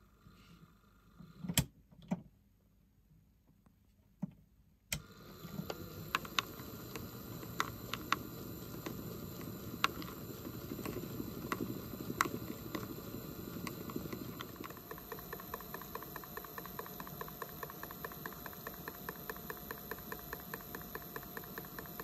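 Toy washing machine: after a near-quiet pause broken by two sharp knocks, its small motor starts about five seconds in and turns the drum through soapy water with a steady whir and scattered clicks. From about halfway through, the clicks settle into a quick, regular ticking over a faint high whine.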